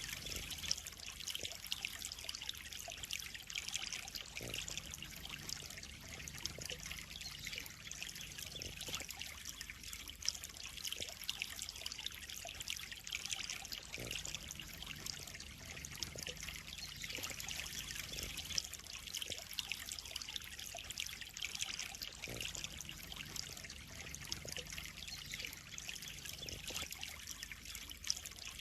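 Water trickling and splashing steadily into a koi pond, a continuous fine hiss with a faint low hum underneath.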